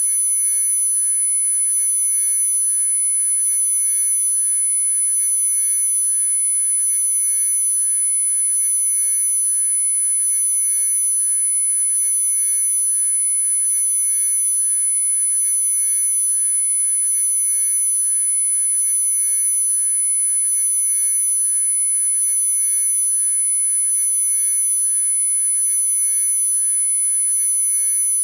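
Electronically generated steady tones: a high-pitched sine tone with fainter tones at several lower pitches, all unchanging. This is a synthesized 'concentration assist' frequency track made for headphone listening.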